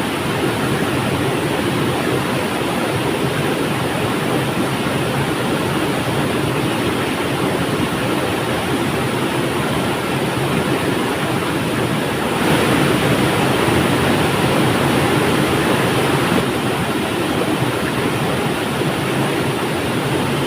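River water flowing, a steady rushing that steps up a little louder for about four seconds past the middle.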